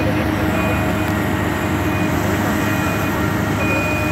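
Diesel engine of a BEML BE1000-1 front-shovel excavator running steadily while the bucket digs, with a back-up alarm beeping about once a second over it.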